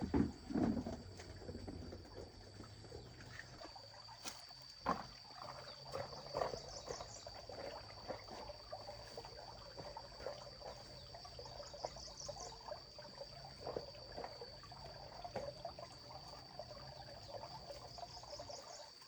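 Insects calling in a steady high drone, with short chirping trills now and then. Scattered soft knocks and rustles of handling sound over it.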